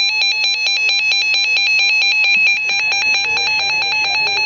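Electronic warbling alert tone opening an Emergency Alert System warning, flipping rapidly between two pitches about ten times a second.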